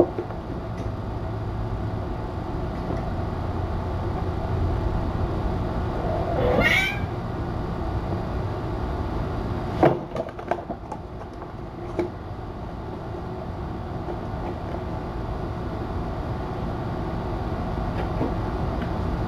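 A single rising meow from one of the cats about six seconds in, over a steady low hum. A few sharp knocks come from the cats playing around a cardboard box a little past halfway.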